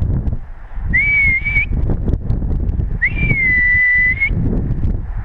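Two high whistled notes: a short one about a second in, then a longer one about three seconds in that swoops up, dips and holds steady before rising at the end. Both sit over a low rustling noise.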